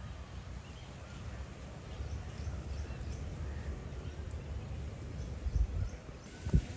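Strong wind buffeting the microphone, a steady low rumble with a couple of heavier gusts near the end, with faint bird calls in the background.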